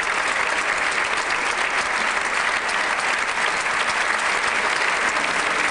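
Concert audience applauding steadily after a performance.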